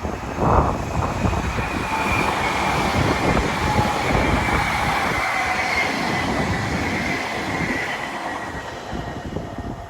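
Class 331 electric multiple unit passing through the station at speed without stopping: a loud rush of wheel and air noise, with a high whine that slowly falls in pitch as it goes by. The noise fades over the last couple of seconds.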